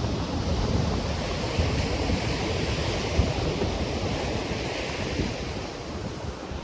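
Ocean surf washing on the shore, with wind buffeting the microphone and a steady low rumble underneath; the surf's hiss swells and then eases off in the middle.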